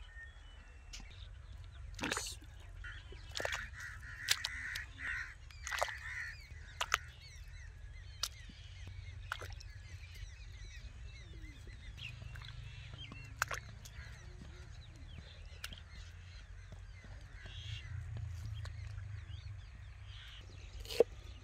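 Beef trotters set by hand into water in an unglazed clay pot: scattered sharp knocks and clunks of bone and hoof against the clay, with birds calling in the background.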